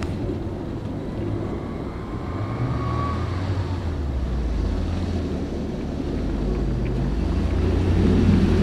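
Audi A6 engine running and revving as the car is driven in tight turns on snow, its pitch rising and falling and loudest near the end, with wind noise on the microphone.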